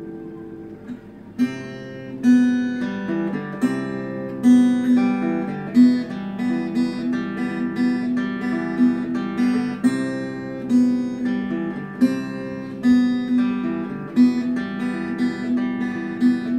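Acoustic guitar strummed in a steady chord rhythm with no voice; a chord rings and fades at first, then the strumming picks up again about a second and a half in.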